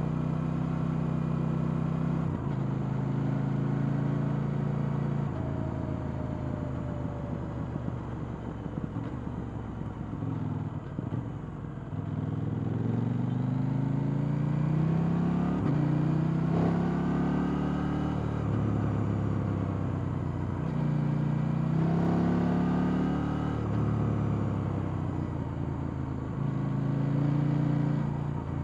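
KTM 890 Duke R's parallel-twin engine with its stock exhaust, heard on board while riding: a steady cruising note for the first stretch, then several accelerations where the pitch climbs and drops back through gear changes in the second half, before settling into a steady note again near the end.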